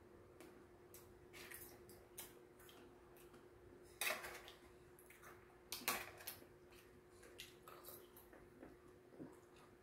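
Faint clinks of metal chopsticks and a spoon against a stainless steel compartment tray, two louder clinks about four and six seconds in, over a faint steady hum.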